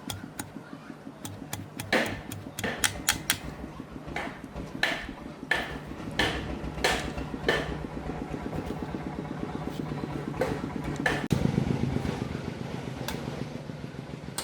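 Metal tools and parts clinking and tapping against each other at irregular intervals during tractor clutch repair work, over a steady low hum that gets louder about eleven seconds in.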